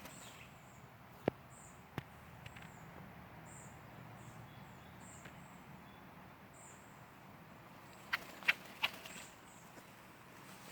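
Faint, short high-pitched chirps repeating at irregular intervals, with single sharp clicks about one and two seconds in and a quick cluster of louder clicks about eight seconds in.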